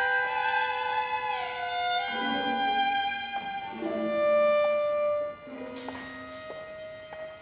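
Live chamber music: a violin holding and sliding between long notes over other sustained instrument notes, swelling to a louder held note about four seconds in, then dropping suddenly to one quieter held tone.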